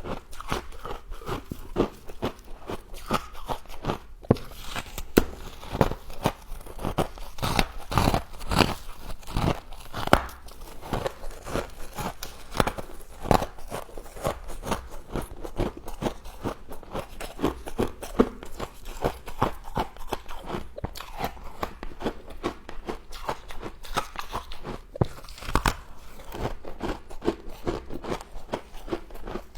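Close-up crunching and chewing of humidifier frost: steady, irregular crisp crunches, several a second, as the ice is bitten and chewed.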